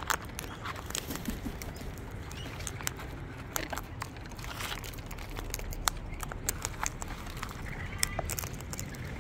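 Sulphur-crested cockatoos eating seed mix from a plastic tray: many irregular, quick clicks and crunches of beaks cracking seeds and pecking the tray.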